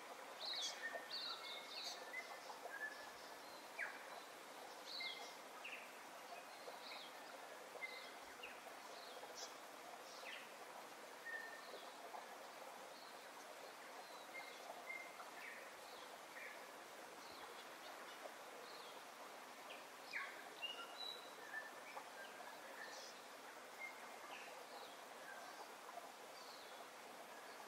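Birds chirping with many short, scattered calls over a steady background noise.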